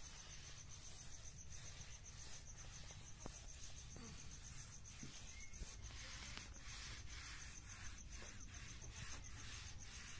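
Faint, high-pitched insect trill, pulsing evenly and without a break, over low background noise.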